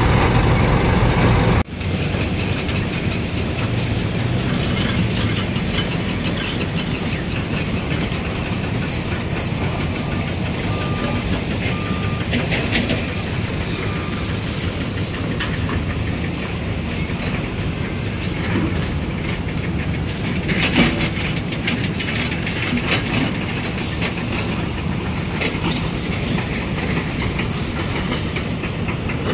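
Heavy machinery working. A low engine hum breaks off abruptly less than two seconds in. A steady mechanical rumble follows, with many irregular sharp clicks and clanks.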